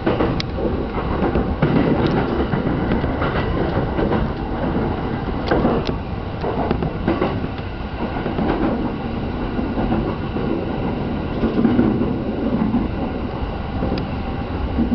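E231-series electric commuter train running along the track: a steady rumble with irregular clicks as the wheels pass over rail joints.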